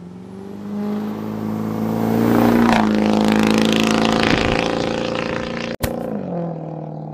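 A Ford F-350's 7.3-litre Powerstroke turbo-diesel accelerating past on the road, a high turbo whistle rising as it comes, the engine and tyre noise swelling to a peak about three seconds in. Near six seconds in, a brief dropout and a sharp knock as the camera tips over into the grass.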